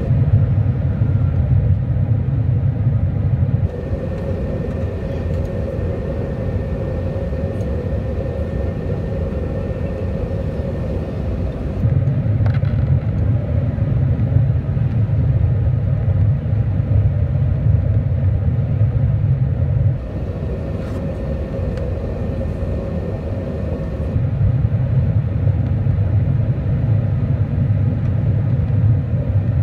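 Airbus A380 cabin noise on approach with flaps extended: a steady engine and airflow rumble with a constant hum through it. The deepest part of the rumble grows louder and softer in stretches of several seconds.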